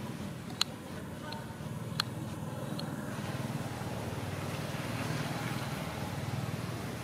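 A steady low mechanical rumble, like a running engine, with two sharp clicks about half a second and two seconds in.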